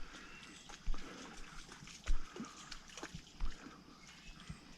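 A blood-tracking dog working about in a shallow creek: faint splashing and trickling water with a few scattered knocks as it moves.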